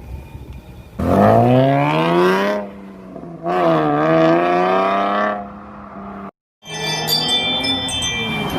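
Car engine revved in bursts: two long revs that climb and then fall in pitch over a steady drone, a brief cut to silence, then more running with steady high tones.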